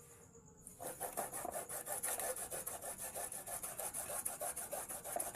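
Fresh turmeric root being grated on a hand grater: quick, even rasping strokes that start about a second in and keep going.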